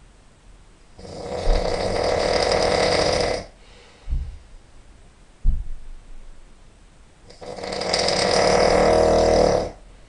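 A man snoring: two long snores, each about two and a half seconds, with two brief low sounds in the pause between them.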